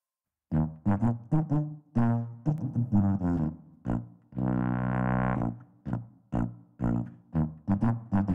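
Sousaphone playing a lively tune of short, separated low notes, with one longer held note about halfway through; it starts about half a second in.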